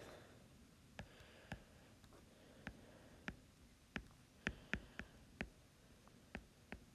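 A stylus tip tapping and ticking on an iPad's glass screen while handwriting: about a dozen faint, irregular clicks.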